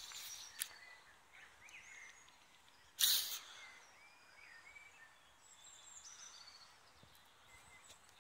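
Small birds chirping faintly against a low outdoor hiss, with one brief loud rustle about three seconds in.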